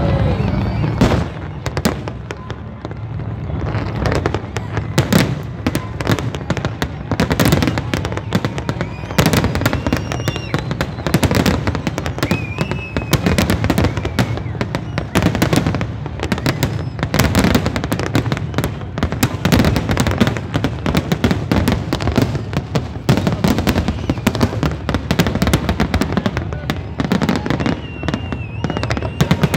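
Aerial fireworks shells bursting in a dense, continuous barrage of bangs. The barrage eases briefly a few seconds in, then carries on.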